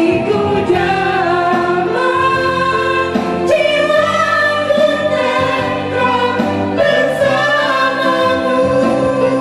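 A woman singing a slow love song through a handheld microphone and PA loudspeaker, holding long wavering notes over an instrumental backing with guitar.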